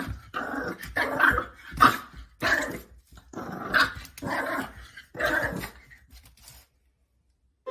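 Small white puppy growling and giving little barks in short repeated bursts, about one or two a second, that stop shortly before the end.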